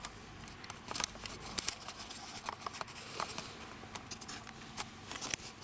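Handling noise from a handheld camcorder: a quick run of irregular rustles and clicks as the camera is turned round and rubs against the sleeve of a jacket.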